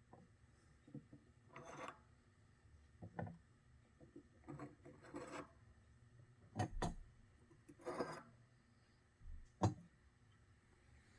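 Bicycle rear-hub parts and tools being handled during a hub teardown: irregular rubbing and scraping with a few sharp knocks, the loudest near the end.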